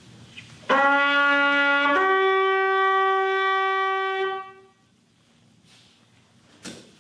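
A pitch pipe sounding two held notes, a lower one and then a higher one held for a couple of seconds, giving the starting pitch for an a cappella choir.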